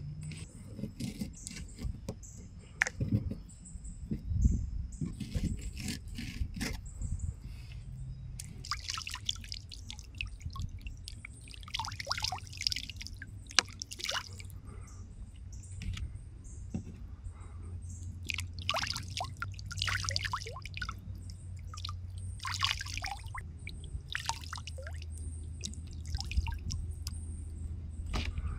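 Water poured from a plastic bottle over freshly cut catfish fillets, running off and splashing into the river in several spells through the second half. Knocks and clatter of handling come in the first few seconds.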